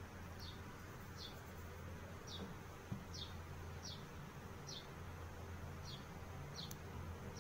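About eight short, high chirps, each falling in pitch, spaced just under a second apart, over a low steady hum.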